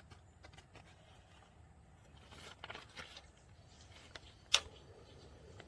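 Faint scraping and rustling with scattered small clicks, and one sharper click a little after four and a half seconds in.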